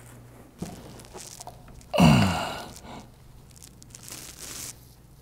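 A man's short sigh, falling in pitch, about two seconds in, over light rustling of a rag wiping oil drips off hydraulic fittings.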